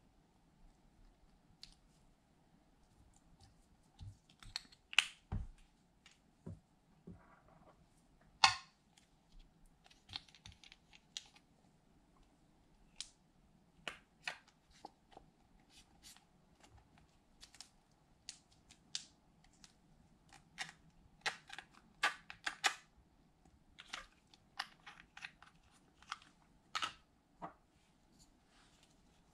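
Irregular sharp clicks and taps from handling a small plastic eyeshadow compact, glitter and little containers over glass baking dishes. The loudest clicks come about 5 and 8 seconds in.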